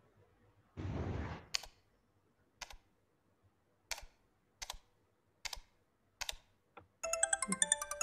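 Sound effects from an animated lesson video: a brief whoosh about a second in, then a string of sharp single clicks about three-quarters of a second apart, and near the end a bright chiming jingle of several notes.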